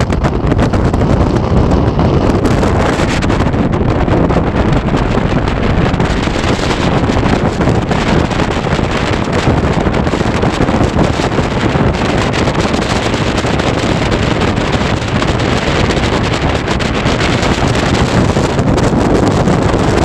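Loud, steady wind buffeting the microphone over a small boat's motor running underway.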